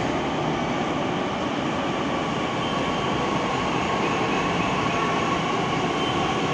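Titagarh-built Pune Metro train pulling into the station alongside the platform: a steady rush of wheels and running gear with a faint thin whine.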